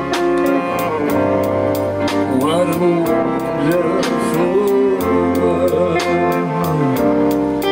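Music with a steady beat and guitar.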